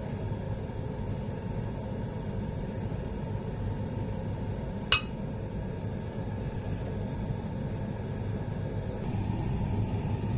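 Steady low background hum, a little louder near the end, with one sharp clink about five seconds in: a metal spoon knocking against a ceramic bowl.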